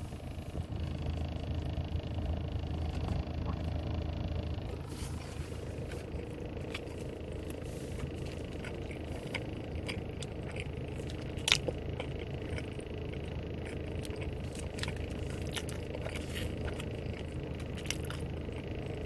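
Steady low hum of a car cabin, with scattered small crinkles and clicks as a plastic sauce packet is handled and squeezed. One sharper click stands out about halfway through.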